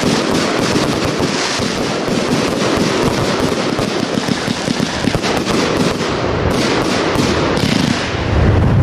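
Fireworks going off in quick succession: a dense, continuous crackle of many small pops from bursting stars, with a louder, deeper boom near the end.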